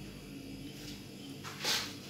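A short, loud hiss about a second and a half in, over a faint steady background of short repeating chirps.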